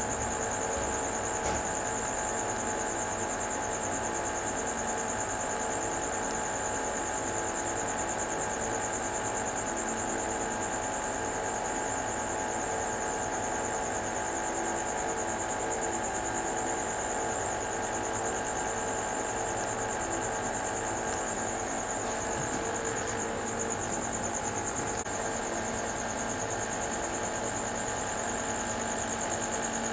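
Steady machine hum with a constant high-pitched whine, unchanging throughout.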